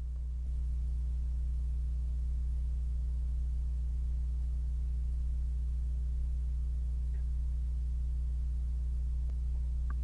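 A steady low hum with no change in pitch or level, and a faint click about half a second in and another near the end.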